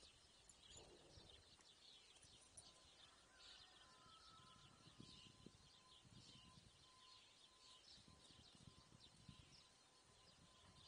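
Near silence: faint outdoor ambience with scattered small bird chirps.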